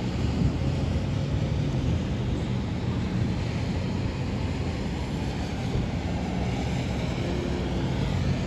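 Steady low rumble of thunderstorm wind with a constant low hum beneath it.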